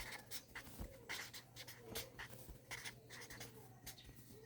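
Faint, irregular scratching and light clicking handling noises, over a steady low hum.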